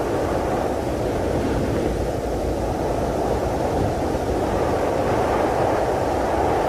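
A steady, muffled rushing noise with a low rumble underneath, like static with its treble cut off, holding even throughout with no tones, beats or breaks.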